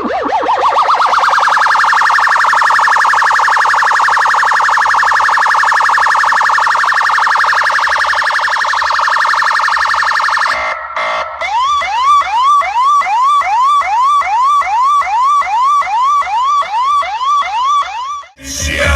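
Electronic siren effect played loud through a car sound system: a rapid warbling wail for about ten seconds, then a short break, then a chain of rising 'whoop' sweeps about twice a second. Heavy bass music cuts in right at the end.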